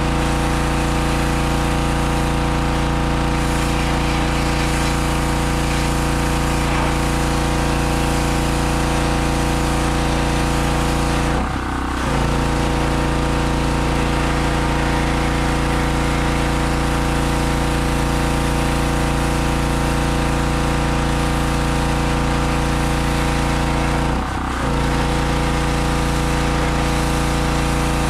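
Harbor Freight 2500 PSI pressure washer's 160 cc gas engine running steadily, with the hiss of the water spray. Twice the engine briefly dips in pitch and level.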